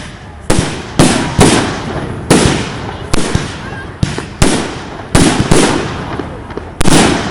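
Aerial fireworks shells bursting in quick succession, about ten sharp bangs at uneven intervals, each dying away in echo.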